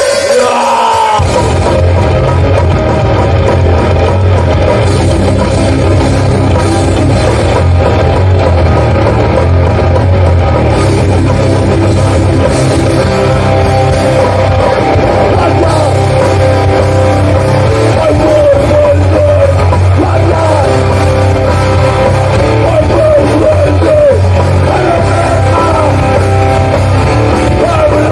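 Hardcore punk band playing loud and live, with distorted guitars, bass and drums. The music starts abruptly, and the heavy low end joins about a second in.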